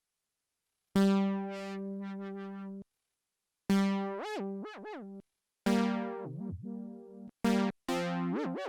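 Roland Jupiter-6 analog synthesizer playing a bright, buzzy patch: about five separate held notes, each with a sharp attack that fades down, several bent quickly down in pitch and back up. Between notes the sound cuts off to silence, and the first second is silent.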